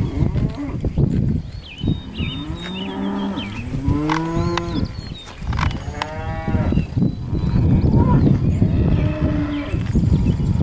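Steers mooing: several long, drawn-out moos from about two seconds in, with a shorter one near the end.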